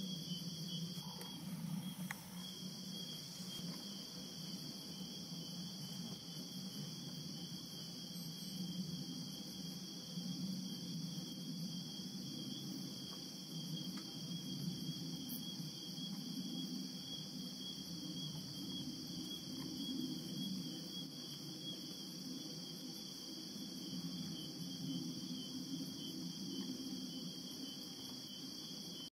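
Crickets chirping in a steady night-time chorus, a continuous high trill, over a low steady hum.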